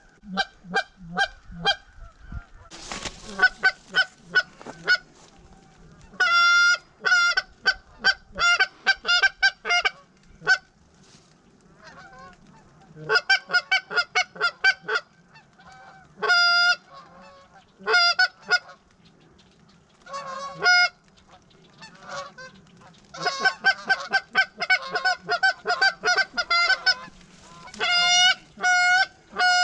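Geese honking in repeated runs of short, evenly pitched honks, with gaps between runs. About three seconds in there is one short, sharp burst of noise.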